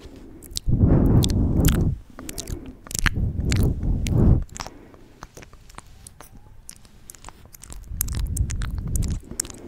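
Wet mouth sounds close to the microphone: many sharp clicks and smacks, with three longer low rushes of noise in between.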